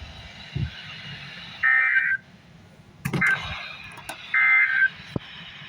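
Emergency Alert System end-of-message data signal: three short bursts of high two-tone data tones, each about half a second or less, roughly a second and a half apart. A few sharp clicks fall between the bursts.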